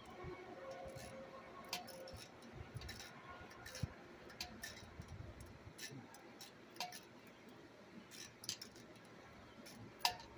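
Irregular light metallic clicks and clinks of a wrench working on the bolts of an air compressor, with the sharpest clink near the end.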